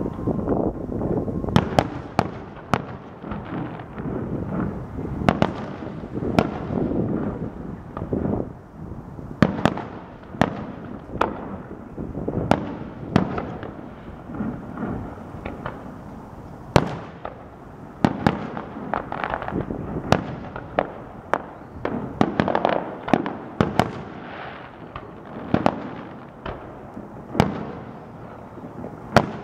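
Aerial fireworks display: many sharp bangs of bursting shells at irregular intervals, each trailing off, over a continuous low rumble of further bursts.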